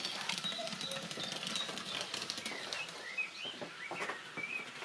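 Recorded birdsong from a model railway's sound module: a string of short, wavering chirps, most of them in the second half. Rapid light clicking from model vehicles running on the layout runs underneath.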